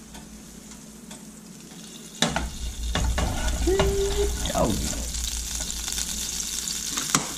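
A saucepan with leftover ground-beef grease set down on a red-hot electric coil burner with a clank about two seconds in, after which the grease sizzles steadily. A sharp click near the end.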